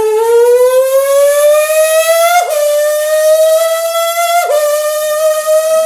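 Formula 1 engine imitated by mouth, buzzing through a piece of plastic held between the lips. One long whine whose pitch climbs steadily, broken by two quick dips in pitch, about two and a half and four and a half seconds in.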